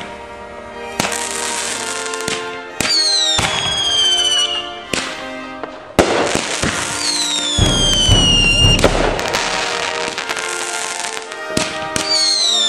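Consumer fireworks going off: sharp pops and crackling over a steady hiss, with three whistles that each slide down in pitch over a second or two.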